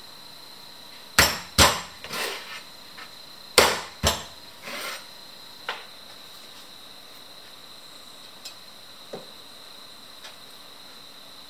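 Kitchenware being knocked and set down: two pairs of sharp knocks about two seconds apart, each followed by softer clatter, then a few faint clicks.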